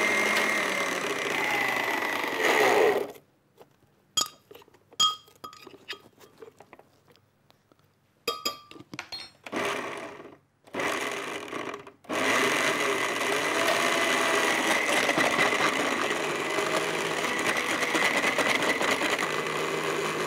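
Countertop blender motor running on a thick, waterless herb-and-chilli chutney mix, winding down and stopping about three seconds in. Several seconds of scattered knocks and a short burst follow, then it starts again and runs steadily from about twelve seconds in. With no water added, the mix does not blend well.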